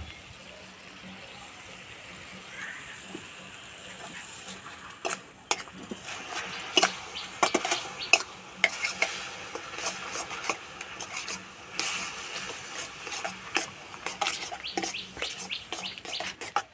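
Ghee sizzling as it melts into hot sugar syrup in a metal kadai (wok). From about five seconds in, a metal spatula scrapes and clinks against the pan as the mixture is stirred.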